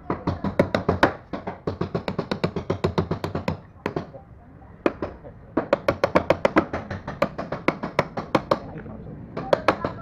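Hammer tapping a rusty steel bar driven into the seam of a plastic front-loading washing machine tub, metal on metal, to split the tub halves apart. Quick light strikes, about five a second, in runs with short pauses near the middle and near the end.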